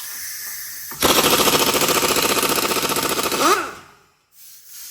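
Pneumatic impact wrench hammering for about three seconds as it undoes the last 17 mm bolt holding the lower ball joint on a VW Voyage's front control arm. A brief rising whine comes near the end, and it cuts off.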